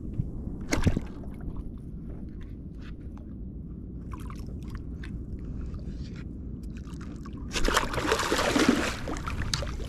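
Blacktip shark splashing at the surface beside a kayak as it is lifted on the fishing line: a loud burst of splashing for about a second and a half near the end, over water lapping against the hull. A sharp knock comes about a second in.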